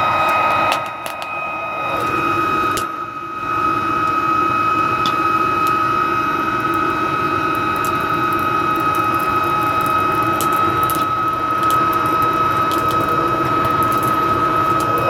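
Homemade metal-melting furnace running hard: a steady rushing roar with a constant high motor whine, typical of a forced-air blower driving the burn. The sound dips briefly about a second in and again around three seconds in, then holds steady.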